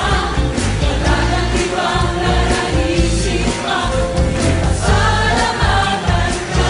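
Soundtrack song: voices singing a melody over a band with a steady beat.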